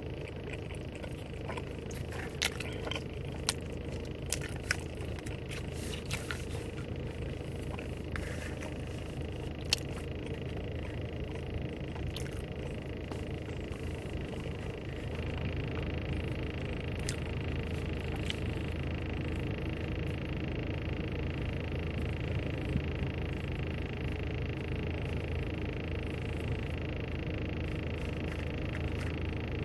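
Steady hum inside a car, with crackling and clicking from a plastic sauce packet being squeezed during the first ten seconds or so. The hum gets a little louder about halfway through.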